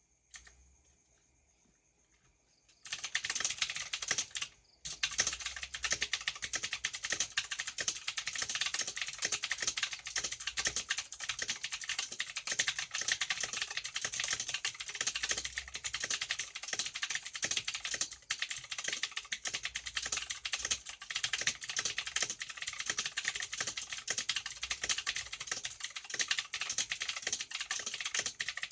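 Fast typing on a Zanfu mechanical keyboard with clicky blue switches: a dense, rapid run of key clicks begins about three seconds in, breaks off briefly a couple of seconds later, then runs on steadily. The space bar has lost its click.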